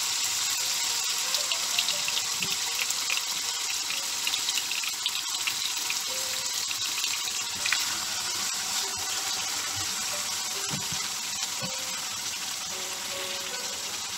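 Beef shank slices sizzling as they sear in hot olive oil in a frying pan, a steady crackling hiss. It flares briefly about eight seconds in as a second slice is laid into the oil.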